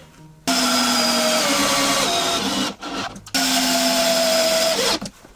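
Bosch 12 V cordless drill-driver driving screws into wood: two runs of steady motor whine, about two seconds and a second and a half long, with a short pause between. The pitch sags slightly as each screw pulls in, and the second run stops abruptly.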